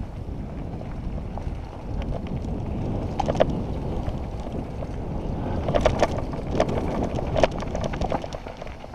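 Mountain bike riding down a bumpy dirt trail, heard from a helmet-mounted camera: steady wind and tyre rumble, with bursts of clattering rattles from the bike over bumps about three seconds in and again around six to seven and a half seconds.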